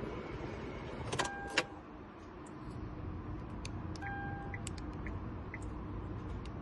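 Short electronic beeps with sharp clicks while a new remote head key is programmed to the car. There are two quick beeps about a second in and a longer beep about four seconds in, over a steady background hum with scattered small clicks.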